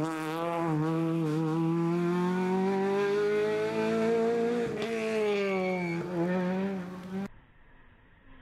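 Peugeot 208 R2 rally car's engine pulling hard, its pitch climbing steadily for about four and a half seconds, then dropping at a gear change, with another shift about a second later. About seven seconds in the engine sound cuts off abruptly, leaving only faint background.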